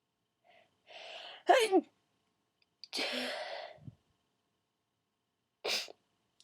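A person sneezing. A breathy intake about a second in leads into a sharp sneeze with a falling squeak of voice, the loudest sound here. A long breathy exhale follows, and a second short, sharp sneeze comes near the end.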